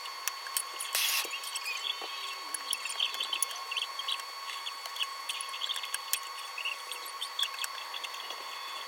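Paintless dent repair tools working a car's sheet-metal panel: many small irregular clicks and squeaks as the metal is pushed and eased out, with a brief louder scrape about a second in. A steady high hum runs underneath.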